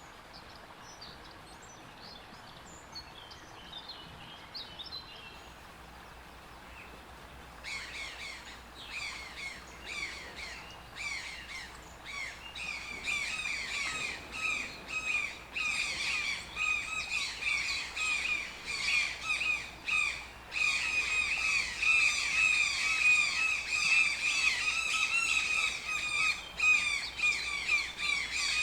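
Toucan calling: a fast run of harsh squawks, several a second, starting about eight seconds in and growing louder. Before that there are only faint high chirps.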